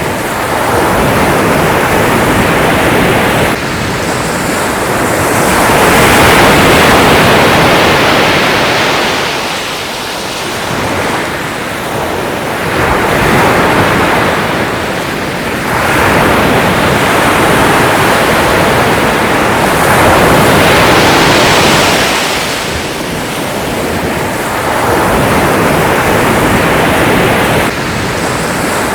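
Sea waves washing in and drawing back, a loud rushing noise that swells and fades every few seconds.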